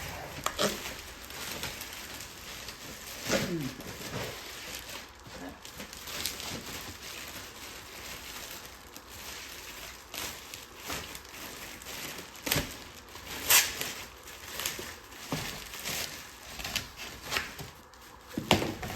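Packaging being handled during unboxing: irregular rustling and crinkling of packing material, with scattered light knocks and a few louder ones.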